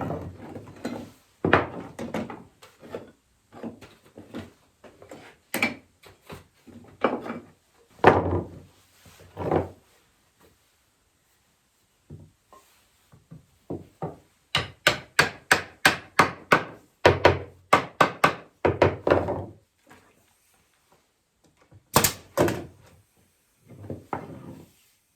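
Walnut chair parts being knocked with a hammer, a series of wooden thunks with pauses between, including a quick run of about three taps a second in the middle and two sharp cracks near the end.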